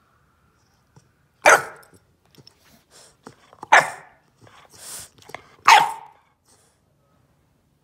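English bulldog puppy demand barking in protest: three loud barks about two seconds apart, with fainter short sounds between them.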